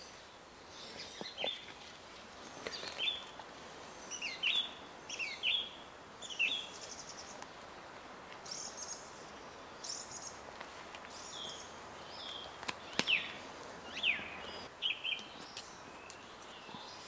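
Wild birds chirping and calling in the bush: a string of short, quick whistled notes, many sliding down in pitch, over a low background hiss, with a sharp click about two thirds of the way through.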